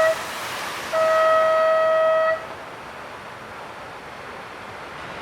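Surf contest horn sounding the end of a heat: the tail of one long steady blast, then a second blast of about a second and a half. A steady background hiss follows.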